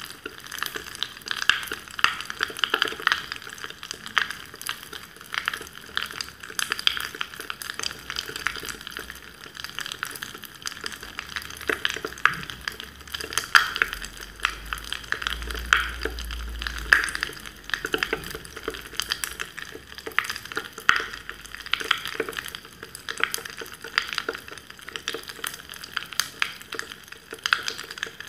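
Carbonated drink fizzing in a glass mug: a steady crackle of many tiny bubbles popping.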